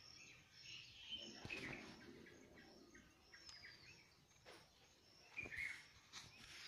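Sparrows chirping faintly in short, scattered chirps, with one thin falling whistle about halfway through. A few soft knocks from the phone being handled.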